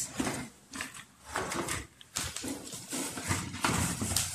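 Rustling and crinkling of cardboard flaps and a plastic bag as fan parts are pulled out of their carton, in irregular bursts.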